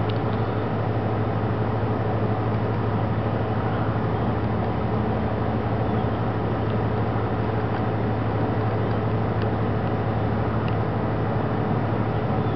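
Military jet engines heard at a distance as a steady low rumble that neither rises nor falls.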